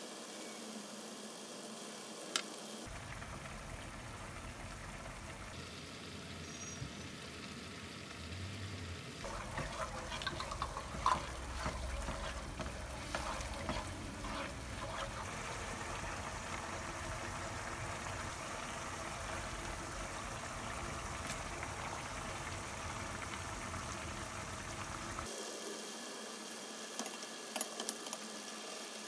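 Mapo tofu sauce simmering and bubbling in a nonstick frying pan on a gas burner, with a wooden spoon stirring it and now and then scraping or clicking against the pan, mostly in the middle stretch.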